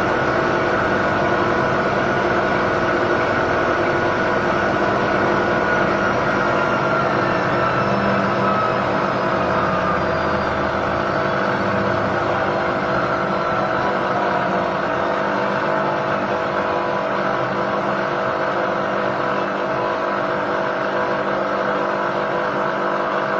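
Miele W1 Classic washing machine in its spin cycle: steady motor whine and drum noise, with a few tones falling slowly in pitch. The suspension springs and dampers clatter on an unbalanced spin, the machine's well-known noise problem even with a light load.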